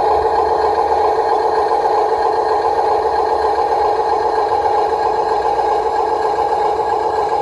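Small electric motor and plastic gearbox of a radio-controlled toy construction vehicle running with a steady, even whine. The whine is a constant pitch that neither rises nor falls.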